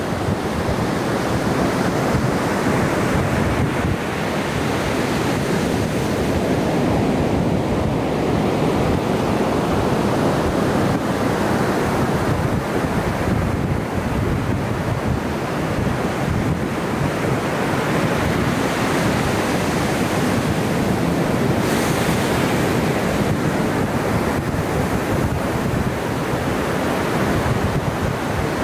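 Ocean surf: waves breaking in a steady, continuous rush.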